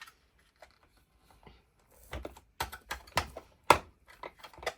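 Hard plastic clicks and taps from handling a toy car while its plastic tailgate is being fitted. It starts almost silent, then from about two seconds in there is a run of sharp clicks, a few a second.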